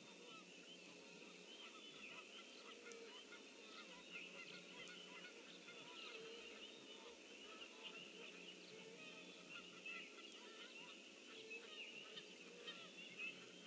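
Faint chorus of many birds chirping and singing at once, with a few lower honking calls every few seconds.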